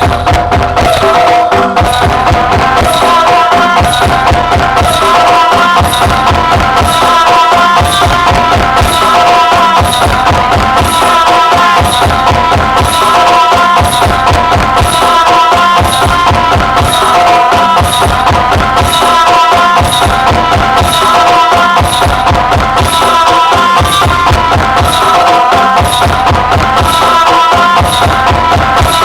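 Loud mberot dance music played through a big sound system, with a heavy, regular bass beat, percussion and held melody tones.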